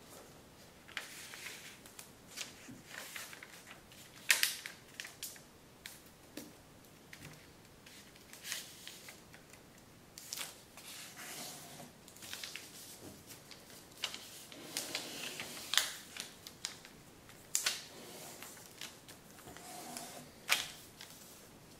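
Kami origami paper rustling and crackling as hands fold it and press along the creases: irregular short crinkles, with a few louder crackles.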